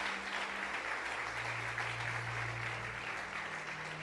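A congregation applauding: an even, steady clapping of many hands. A low hum comes in for a second or two in the middle.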